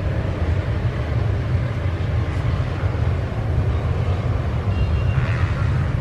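Steady loud low rumble of strong wind buffeting the microphone, mixed with jet aircraft engine noise.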